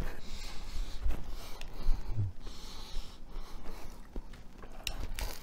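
A man chewing a mouthful of sandwich, breathing noisily through his nose, with a short low hum of enjoyment about two seconds in.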